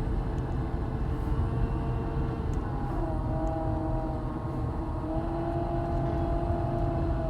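2008 Honda Accord engine running with a loud noise from the A/C compressor clutch: a steady rumble with a whine over it that shifts in pitch about three seconds in and again near five seconds. The owner suspects a bad bearing in the compressor clutch.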